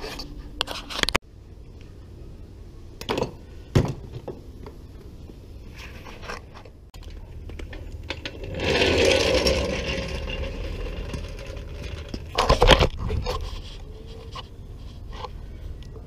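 Clanks, knocks and scraping from handling steel wheels and hand tools while mounting wheels on a car. The loudest part is a rattling, scraping stretch of about two or three seconds near the middle.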